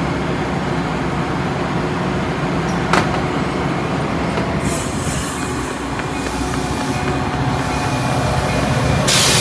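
Metra commuter train with a diesel locomotive rumbling steadily. The bilevel car's side doors shut with a sharp knock about three seconds in, and the train then starts to pull away, with rushing wheel and rail noise that grows louder near the end.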